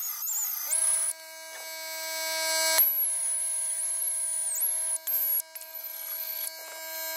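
Pneumatic mini belt sander grinding the heads off rivets, running with a high whine. The whine dips in pitch each time the belt bites under load, and the tool cuts out briefly a couple of times near the end.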